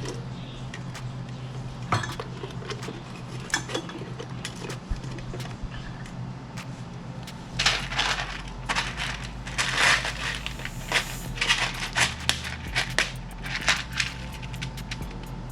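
Rapid clicks, clinks and rattles of small hard parts being handled, sparse at first and then thick and loud for several seconds through the middle before thinning out.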